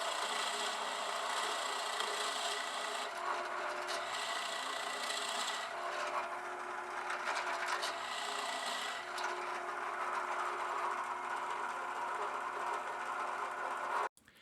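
Forstner bit in a power drill boring into thick Baltic birch plywood, a steady grinding cut with a faint motor hum that eases off and picks up again a few times. It cuts off abruptly near the end.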